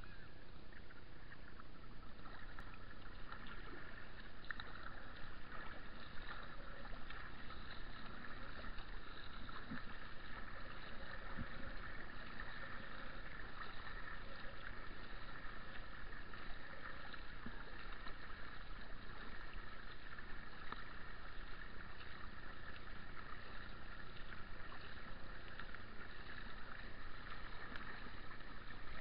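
A kayak paddled on calm canal water: the paddle blades dip and splash, and water drips and trickles off them, in a steady wash of small splashes.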